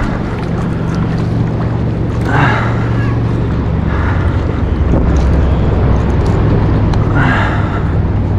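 An engine running with a steady low hum that shifts lower about five seconds in, with wind on the microphone.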